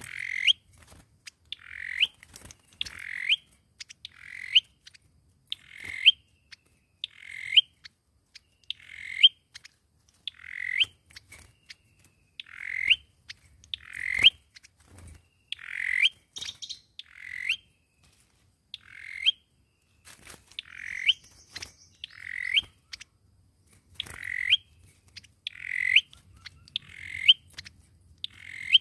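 A sâu dừa bird calling over and over in its challenge song, each call a short burst ending in a sharp upward flick, about one every second or so.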